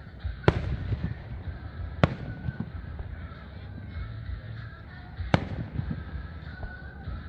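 Aerial fireworks bursting: three sharp bangs, about half a second, two seconds and five seconds in, over a continuous low rumble.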